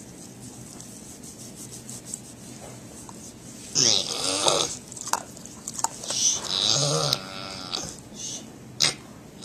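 Domestic pig grunting several times as it is woken, in loud outbursts starting about four seconds in.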